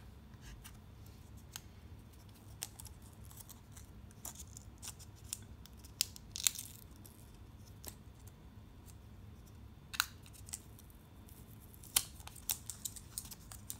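Faint handling of an Apple Watch and its paper and film packaging: scattered light clicks and ticks, short rustles about six and a half and ten seconds in, and a sharp crackle about twelve seconds in as the clear protective wrap on the watch is handled.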